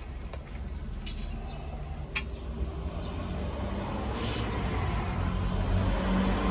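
A motor vehicle's engine hum growing steadily louder as it approaches, with two sharp clicks about one and two seconds in.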